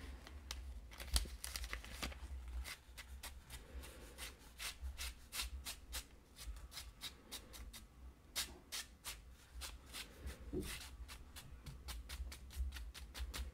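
Fingers tapping and flicking the back of a Bible page to knock off loose embossing powder: a run of light, crisp paper taps that comes quicker and denser near the end.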